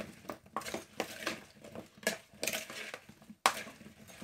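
Metal spoon knocking and scraping against a mixing bowl as potato wedges are tossed in melted beef dripping, with irregular clinks a few times a second.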